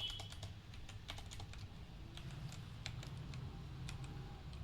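Typing on a Kreo computer keyboard: an irregular run of quick key clicks.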